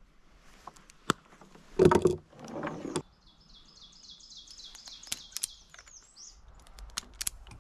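A heavy extension cord being cut with a sharp snip about a second in, followed by a loud rustling burst around two seconds and a second one just after. Small clicks of wire strippers working the cut ends come later. A small bird sings a quick run of high repeated notes from about three to six seconds in.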